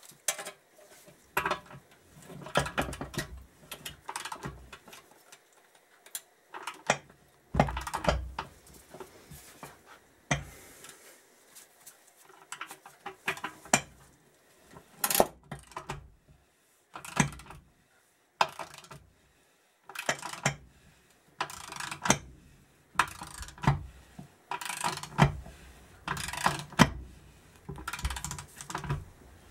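Ratcheting spanner clicking in repeated short bursts with pauses, as it winds a nut along a threaded draw bar that presses a new bearing into a motorcycle swingarm pivot; occasional metal-on-metal clinks between.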